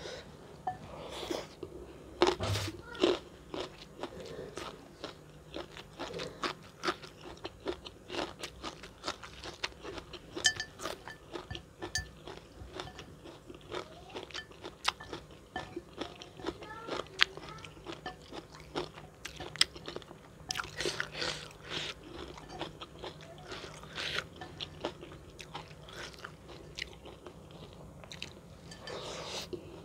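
Close-miked eating sounds: a person chewing and crunching food with many quick irregular bites and mouth clicks, louder crunches near the start and about two-thirds of the way in.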